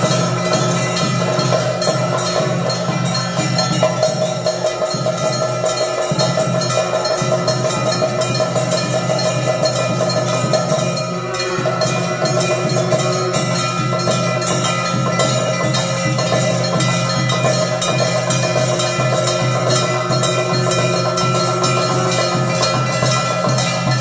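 Temple puja percussion during the lamp-waving aarti: bells and a hand-held brass gong clanging rapidly and without pause over a drum, with steady metallic ringing tones. It eases briefly about eleven seconds in, then carries on.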